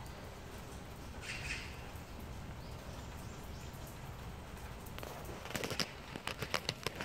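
Calico cat chewing dry kibble: a quick run of crisp crunches, about five a second, in the last second and a half, after a brief rustle about a second in, over a steady low background hiss.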